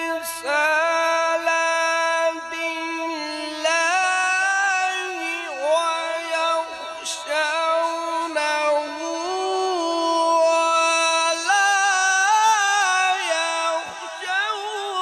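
Male Quran reciter chanting tilawat through a microphone in the melodic, unaccompanied style, holding long high notes with ornamented turns and stepping the pitch up and down.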